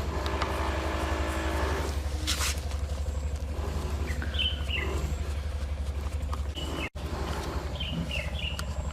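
Small birds chirping a few times over a steady low hum, with a short hiss about two and a half seconds in.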